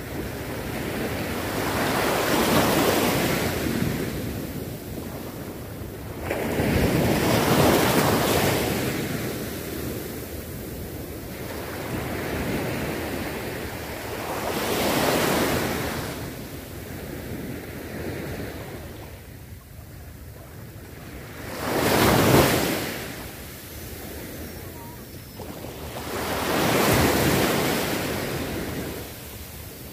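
Small waves breaking and washing up the sand at the water's edge, the rush of surf swelling and fading about every five seconds.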